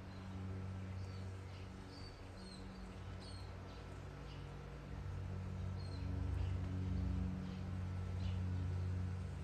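Small birds chirping outdoors in short, high calls, many of them sliding quickly downward, scattered throughout. Under them runs a steady low hum that grows louder about halfway through.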